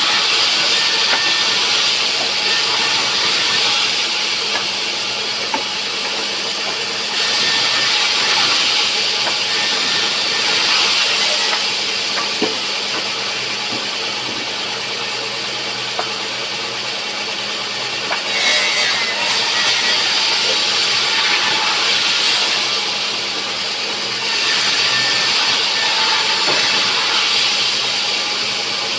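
Sawmill saw running steadily over a motor hum, with the hiss of the blade cutting rubberwood growing louder and easing off several times.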